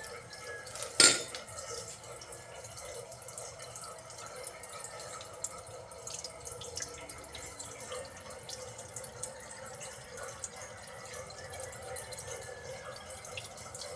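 Water trickling and dripping in a sink drain under a newly fitted PVC P-trap, a steady wash with small drip ticks. A single sharp knock about a second in is the loudest sound.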